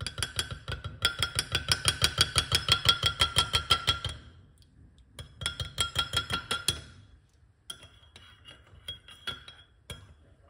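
Metal teaspoon clinking against the inside of a clear glass mug while stirring honey into tea, several clinks a second, each ringing briefly. Two runs of fast stirring with a short pause between them, then softer, scattered clinks over the last few seconds.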